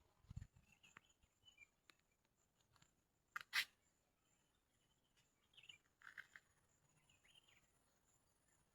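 Near-silent outdoor ambience: faint, scattered bird chirps over a thin, steady, high insect drone, with one brief louder noise about three and a half seconds in.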